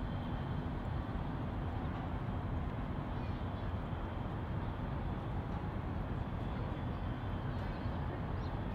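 Steady outdoor city ambience: a constant low rumble with no distinct events standing out.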